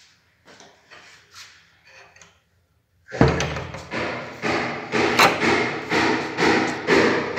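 A few faint soft sounds, then from about three seconds in a run of loud, regular knocks, about two a second.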